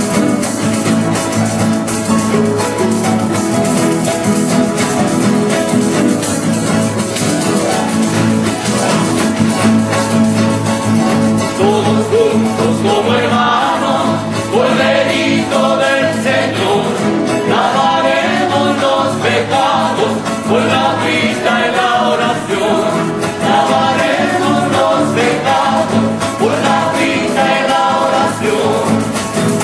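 Chilean folk music: acoustic guitars and a harp play an instrumental passage, and a group of voices joins in singing about 13 seconds in.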